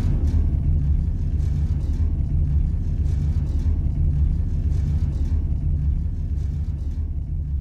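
A heavy, fluctuating low rumble with faint light splashes of water, easing off slightly near the end.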